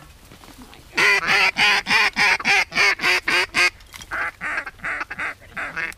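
Duck call blown in mallard quacks: a loud run of about a dozen quacks at roughly four a second, then a softer run of quacks from about four seconds in.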